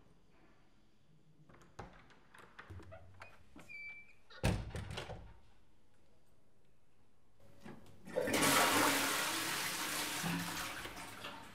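Scattered small clicks and knocks with one loud thump, then a loud rushing noise that starts suddenly about eight seconds in and slowly fades.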